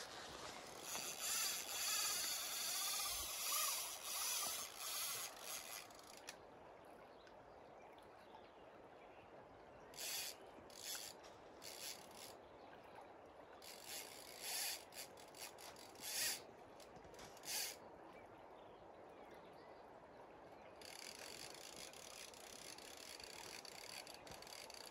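Fly reel's drag ratcheting as a hooked salmon pulls line off: a run of several seconds at the start, then a series of short bursts as the fish takes line in brief pulls, over a steady rush of river water.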